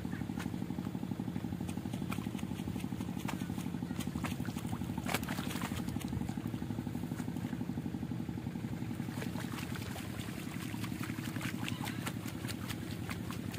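A small engine runs steadily, with wet splashing and squelching from hands pulling rice seedlings out of flooded paddy mud; the splashes come more often in the second half.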